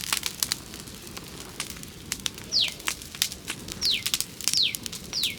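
Wood fire of sticks crackling with frequent sharp pops. A bird repeats a short whistled call that sweeps quickly downward, four times in the second half.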